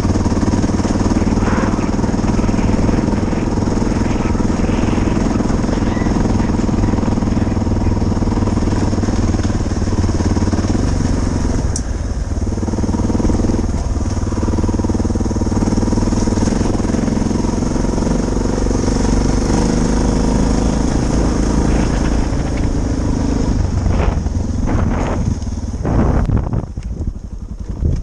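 Suzuki DR650's single-cylinder four-stroke engine running steadily under way, then easing off about a second before the end.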